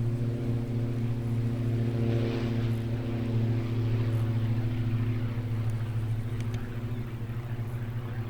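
Light aircraft piston engine running steadily at low power, a low even drone with a steady pitch that eases off a little in the second half.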